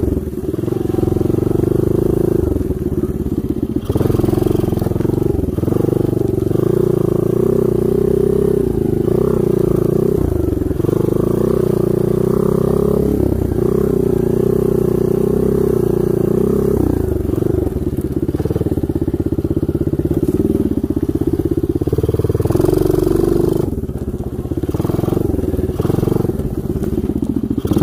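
Engine of a 125 cc ATV with a manual gearbox, ridden off-road under load. It runs loud and continuously, its pitch rising and falling again and again as the throttle is worked.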